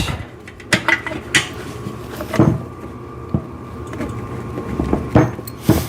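A handful of separate knocks and clunks, about six in all, as square plastic end caps are worked into the steel tubes of an exercise-machine frame. The last knock, near the end, is the loudest.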